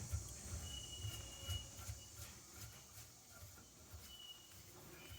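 Faint knocks and handling noise as nuts and a spacer are fitted back onto a yard hydrant's head, with insects trilling in high, steady bursts, one about a second in and another near the end.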